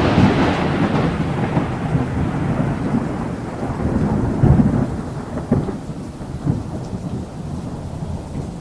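Thunder with rain: a long, rolling rumble that fades slowly, swelling again several times with fresh low rumbles partway through.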